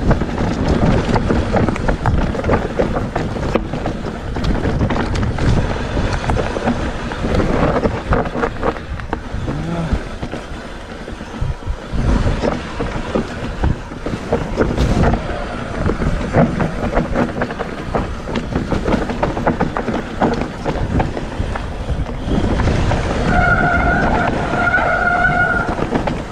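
Electric mountain bike rattling and knocking as it rolls down a steep, rooty dirt trail, tyres rumbling over roots and soil. Near the end a whining tone comes and goes in short spells.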